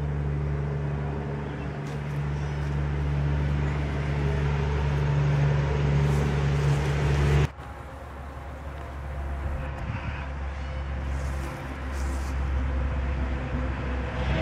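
Steady low mechanical drone under outdoor background noise. About halfway through it cuts off abruptly, leaving a lower hum.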